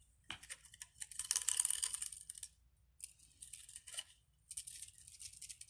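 Crinkly plastic rustling in three bursts as small plastic items are handled.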